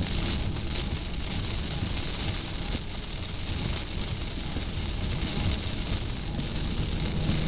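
Heavy rain on a moving car's windshield and body, mixed with steady tyre and engine noise on the wet highway.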